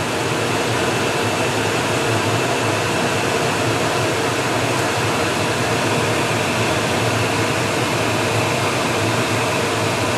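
Steady rushing noise of a running fan, loud and unbroken, with a faint hum in it.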